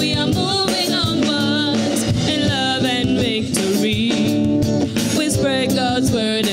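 A small mixed group of men and women singing a gospel song together into microphones, their voices wavering with vibrato over instrumental accompaniment with a steady beat.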